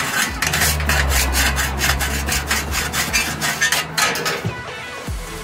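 Flat hand file rasping in repeated push strokes along the edge of a steel blade, sharpening it; the strokes stop about four seconds in. A steady low hum runs under the first few seconds.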